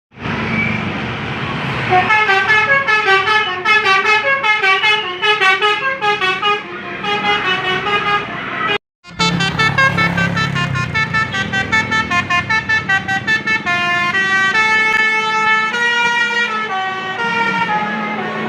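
Bus telolet (basuri) multi-tone horn playing a quick tune of short, stepping notes over the bus's low engine rumble. After a brief break near the middle, the notes come slower and are held longer.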